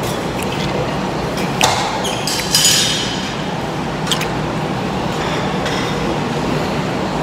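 Cutlery clinking against plates and dishes at a meal: a sharp clink about a second and a half in, a brief clatter near the middle and another clink about four seconds in, over a steady background hum.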